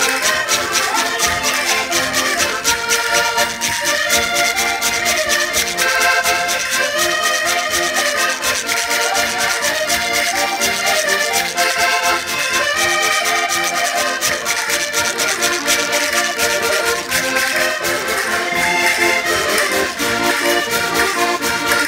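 Several Portuguese concertinas, diatonic button accordions, playing a traditional folk tune together at a quick, steady beat.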